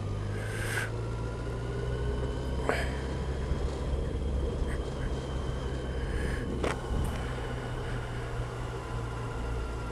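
Touring motorcycle running steadily at low speed through town, its engine a low rumble under wind and road noise at the on-bike camera. Two short clicks cut through, about three and seven seconds in.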